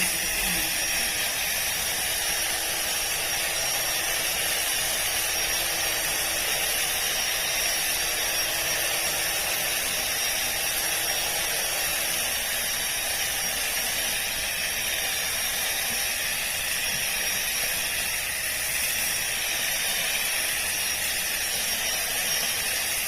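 Makita 18V cordless ground trimmer running steadily while cutting lawn grass: a steady high whine over a hiss.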